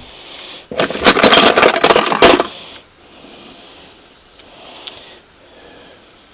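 Loose metal hand tools clattering and jingling against each other as a hand rummages through a toolbox: a loud burst of about a second and a half, then quieter handling with a couple of small clicks.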